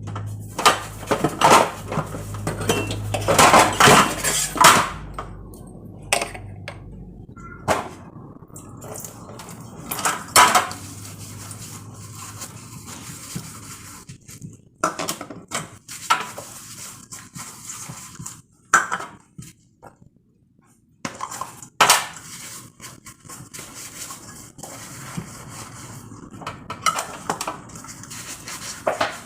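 Dishes and fridge containers being handled and washed at a kitchen sink: irregular clattering and clinking, with the busiest run in the first few seconds and single louder knocks later on.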